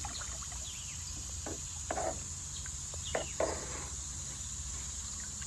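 Insects droning steadily at a high pitch, with a handful of short sharp sounds scattered through, some falling in pitch.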